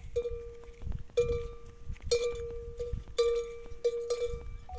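A bell hung on a walking camel's neck clanks with its strides, ringing briefly after each strike, at an uneven pace of about one to two clanks a second.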